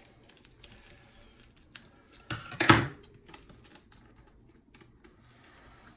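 Hands handling a plastic cleaning-solution packet and a plastic tumbler drum: small scattered clicks and rustles, with one loud, brief handling noise about two and a half seconds in.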